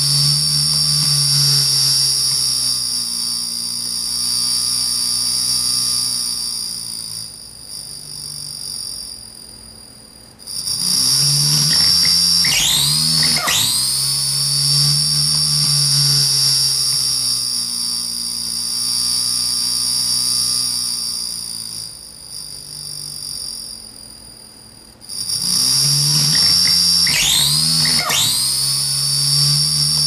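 Circuit-bent Sounds of Nature flashlight toy playing a warped electronic sound loop: a high whine sweeps up and holds over a low hum, fades away, then comes back suddenly, about every 14 seconds.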